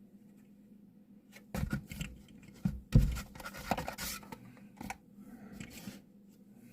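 Hands handling a diecast model car and its plastic packaging: scattered scrapes, rustles and light clicks, with one sharp knock about three seconds in.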